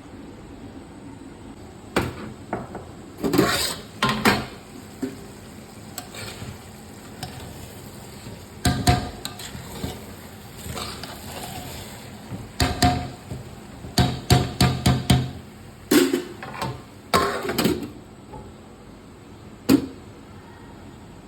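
Metal kitchen utensils and vessels clanking and clattering on and off, some strikes ringing briefly, over a steady low hiss.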